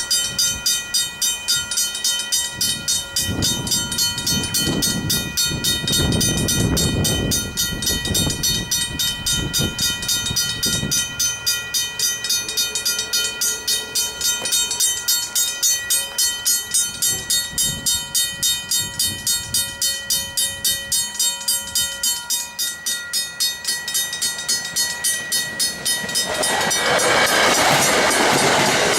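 Griswold mechanical level-crossing bell ringing with steady, evenly spaced strokes. There is low gusty rumbling in the first part, and near the end a train's noise swells loud as it reaches the crossing.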